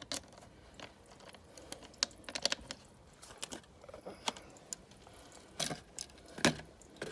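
Hands handling the e-bike's ignition key and lock: irregular small clicks and light taps, a quick run of them about two seconds in, and two firmer knocks near the end.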